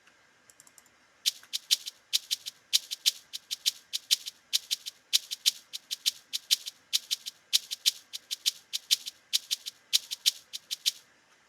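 Programmed afrobeat shaker loop played back in FL Studio at 100 BPM: a sampled shaker in a syncopated pattern of short crisp strokes with varied accents, no kick drum. It starts about a second in and stops just before the end.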